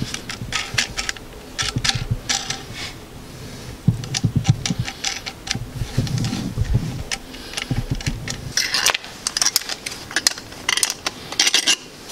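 Repeated metal clicks and clinks as a steel end plate on threaded rods is handled and tightened onto a two-stroke motocross expansion chamber, with a few heavier knocks partway through. The plate is being fitted to seal the pipe before it is straightened by hydraulic pressure.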